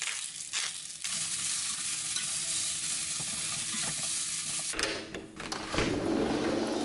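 Cauliflower and baby corn sizzling in a hot stainless steel skillet while being stirred with chopsticks, after a few shakes of a salt and pepper shaker in the first second. The sizzle stops abruptly near the end, giving way to a low rumbling noise as a door is opened.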